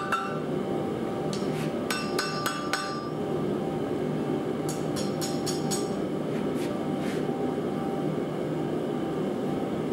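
Hand hammer striking hot, twisted steel bar stock on a steel anvil while the hooked end of a steak flipper is shaped. The blows come as two short runs of quick, ringing strikes, about two and five seconds in, then two single blows, over a steady low background hum.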